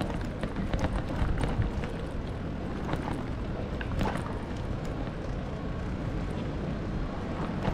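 A bicycle rolling over stone-paved cobbles, with a steady low rumble of wind on the microphone and scattered short knocks and rattles from the bumps.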